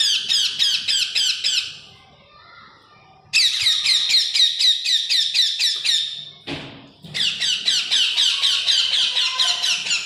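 Hand-fed parrot chick begging: rapid, repeated high squawking calls in three bouts.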